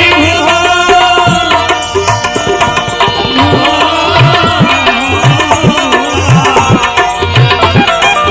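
Instrumental passage of a live Gujarati bhajan: tabla playing a steady rhythm, its deep bass drum strokes bending in pitch, under a sustained melody on a melodic instrument.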